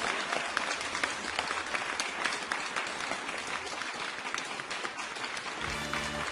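Applause: many hands clapping in a dense patter, with music coming in near the end.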